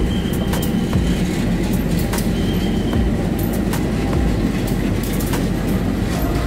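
Two coupled KAI diesel-electric locomotives, a CC 203 leading a CC 201, rolling slowly past: a steady low engine rumble with irregular clicks of wheels over rail joints. A thin wheel squeal sounds for about the first second and again briefly about two and a half seconds in.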